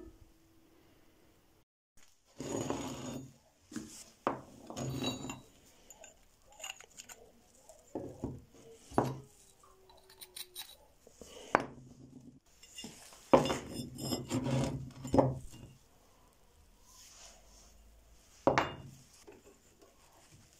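Steel rods, pipe and bar being handled and fitted together on a workbench: scattered metal clinks and knocks with some scraping and rubbing, in irregular bursts with short pauses between.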